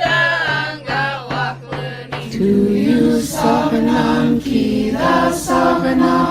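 Singing: a solo voice gliding over a low repeating accompaniment note, then, about two and a half seconds in, a choir taking over and holding sustained chords.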